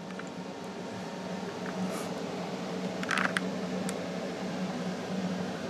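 Steady low hum of room air conditioning, with a few small clicks and a brief rustle about three seconds in as hands work at the knotted neck of a cloth snake bag.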